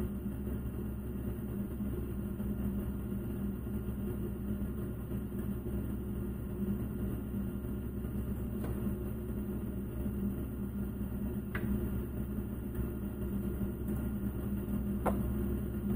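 Steady low machine hum of equipment in a lab room, with a few faint clicks about halfway through and near the end.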